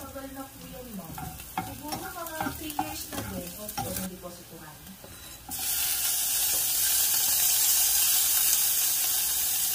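Pork belly sautéing in a saucepan, with stirring clicks at first. About five and a half seconds in, the sizzle turns suddenly loud and then holds as a steady hiss.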